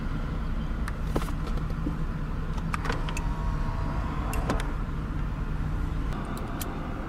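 Mercedes-Benz CLS 350's V6 idling, heard from inside the cabin as a steady low hum, with a few light clicks scattered through it.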